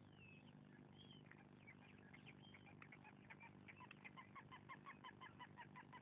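Faint bird calls: a series of short, repeated notes that start about a second in, become a steady run of about three to four a second and grow slightly louder, over a low steady hum.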